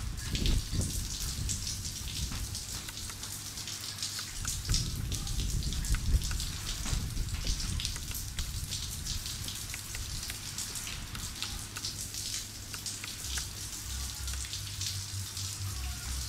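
Light rain falling, a dense irregular patter of small drop ticks, over a low rumble that swells around the middle.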